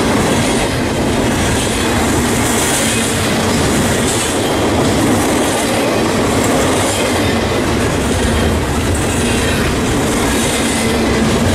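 Double-stack intermodal freight train passing close at speed: the steady, loud rumble and clatter of its wheels rolling on the rails.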